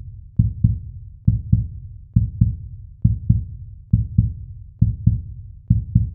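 Heartbeat sound effect: steady low double thumps, lub-dub, about one pair a second.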